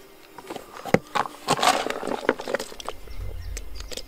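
Carp bait (boilies and pellets) being handled in a bucket: irregular clicks, knocks and a short scrape, with a low rumble starting about three seconds in.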